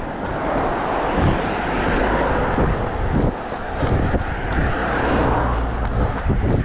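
A road vehicle passing close by: a rushing noise with a low rumble that swells about a second in and fades near the end.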